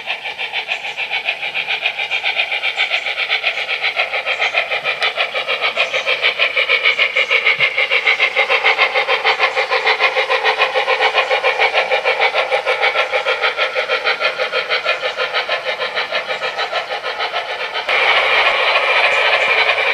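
Simulated steam chuffing from the onboard sound system of a 3rd Rail Sunset O-gauge PRR E6 4-4-2 Atlantic model locomotive running with a freight train: a fast, even chuff that builds over the first several seconds. It gets suddenly louder near the end.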